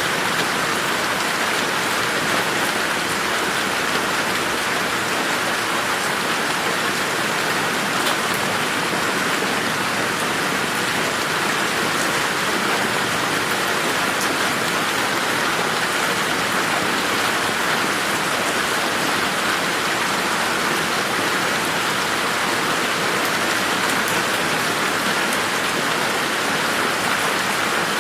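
Steady rain falling on a garden: an even hiss of many drops, with a few sharper drop ticks scattered through it.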